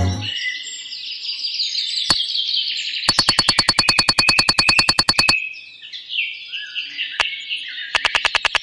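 Small birds chirping and twittering in quick, downward-sliding calls. About three seconds in, a rapid run of sharp clicks, roughly ten a second, lasts about two seconds, and a similar run starts near the end.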